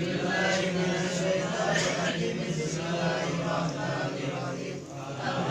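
Men's voices chanting Islamic dhikr prayers together in a steady, droning recitation, dipping briefly about five seconds in.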